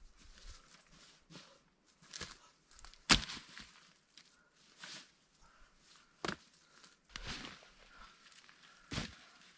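Footsteps rustling through dry fallen leaves while dead wood is handled, with four sharp cracks of sticks or branches, the loudest about three seconds in.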